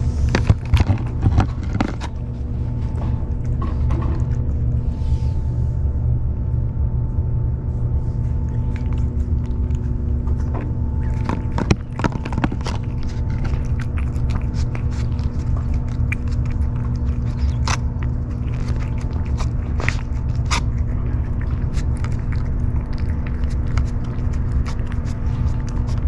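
Cat eating wet food from a paper bowl close up: many small wet chewing and licking clicks. Under them runs a steady low rumble with a constant hum.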